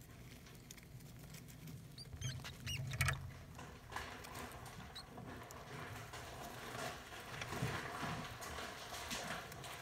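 African soft-furred rats and their young stirring in a nest of shredded paper: light rustling and pattering of the paper bedding, with a few short high squeaks two to three seconds in.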